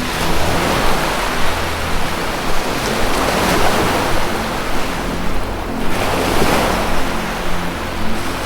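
Ocean surf washing in and out, swelling roughly every three seconds, with a low steady musical drone underneath.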